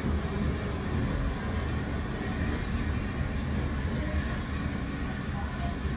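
Steady low rumble of a heritage railway train running along the line, heard from inside a passenger carriage: wheels on the track and the carriage's running noise.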